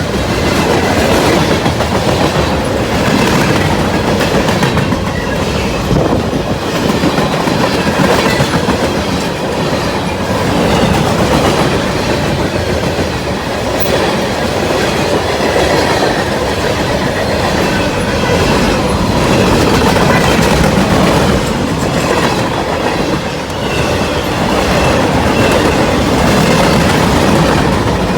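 Freight cars of a CSX manifest train rolling past at steady speed, a continuous loud rumble with wheels clicking over rail joints.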